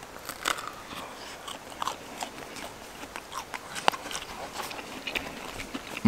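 A person biting into and chewing a crusty pan-fried bread roll: a run of irregular crisp crunching clicks.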